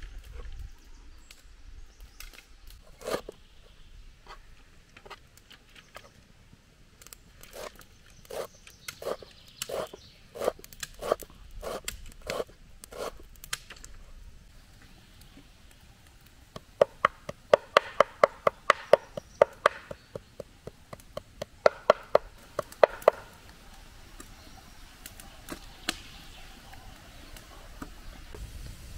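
Knife chopping on a wooden cutting board: a run of single strokes about two a second, then a fast burst of strokes about six a second, and a shorter fast burst a little later.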